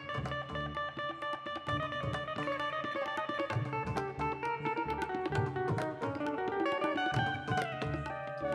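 Instrumental ensemble music: sustained pitched melody lines with plucked strings and frequent hand-drum strokes.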